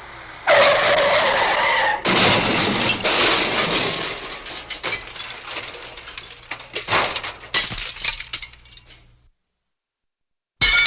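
Cartoon crash sound effect: a loud squealing, skid-like start, then a second crash about two seconds in with breaking glass. Debris clatters and tinkles as it dies away over several seconds, and another loud crash effect begins right at the end.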